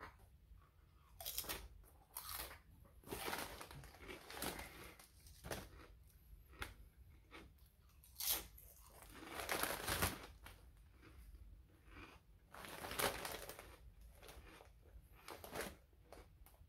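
Ruffles Flamin' Hot BBQ ridged potato chip being bitten and chewed: a string of irregular, faint crisp crunches.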